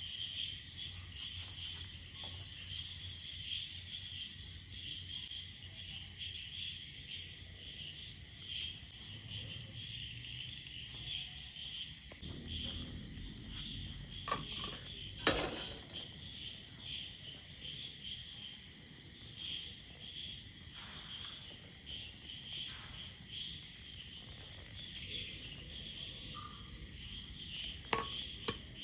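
Insects, crickets by their sound, chirping in a steady fast pulse. A single sharp knock about halfway through is the loudest sound, and a couple of lighter clicks come near the end.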